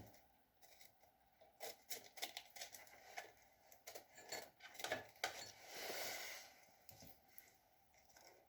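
Faint, scattered small clicks and clinks of metal parts and tools being handled, with a soft rustle about six seconds in; the lathe motor is off.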